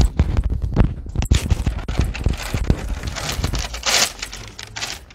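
Microphone handling noise: irregular rustling, scraping and knocks as a clip-on microphone is fastened to a man's shirt, with a burst of scratchy rubbing about four seconds in.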